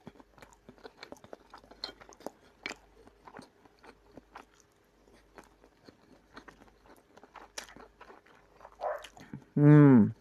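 A person chewing and crunching a mouthful of fried battered fish and bulgur close to the microphone, with many small crisp clicks of biting and chewing. Near the end comes a brief, louder voiced sound that falls in pitch.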